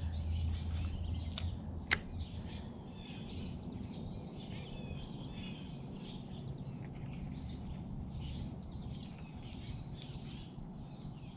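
Many small birds chirping and twittering in the trees overhead, over a low steady outdoor rumble, with one sharp click about two seconds in.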